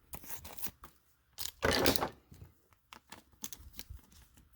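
Packaging of a new RC shock shaft being torn open and crinkled, with one louder ripping rustle about a second and a half in and light rustling and clicks around it.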